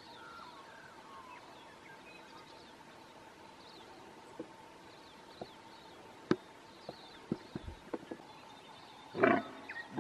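Red stag giving one short, loud roar about nine seconds in, after a scattering of sharp clicks. Faint bird chirps run behind.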